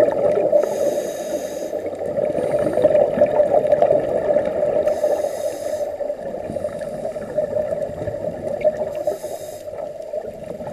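Scuba diver breathing underwater through a regulator, heard through the camera housing: a hiss of breath every two seconds or so over a steady bubbling, crackling underwater noise.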